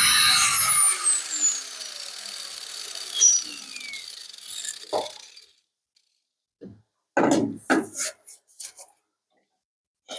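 A handheld power tool is cutting, then released; its motor winds down with a falling whine over a few seconds. A few short clatters follow near the end.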